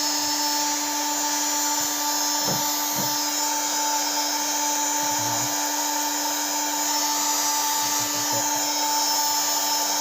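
A small electric repair tool running steadily: a constant whine with a hiss, with a few faint knocks from handling.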